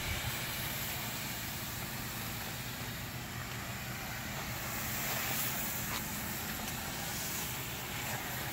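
Low-pressure softwash spray hissing steadily from a hose nozzle as cleaning solution hits a stucco wall, over a steady low hum.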